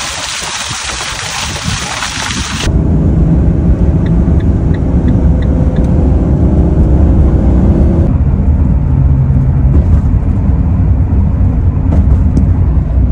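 A steady hiss of a van's tyres rolling over wet gravel for the first few seconds. The sound then changes to the steady low rumble of a Ram ProMaster van driving at road speed, heard from inside the cab.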